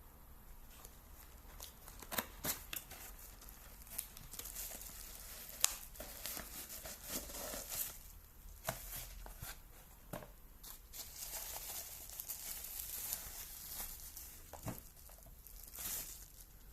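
Packaging being handled: crinkling and tearing of plastic or paper, with scattered clicks and a few louder knocks.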